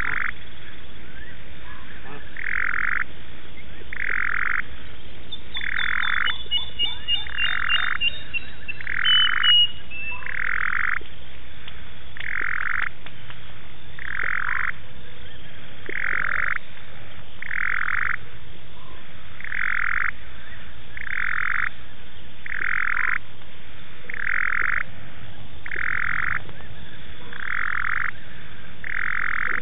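A frog calling: one short call, repeated very evenly about every one and a half seconds. For several seconds about a fifth of the way in, a rapid run of short, higher notes joins it, stepping down in pitch.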